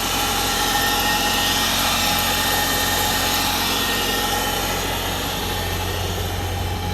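RV diesel generator running steadily with an even drone, on its first run after sitting unused for years.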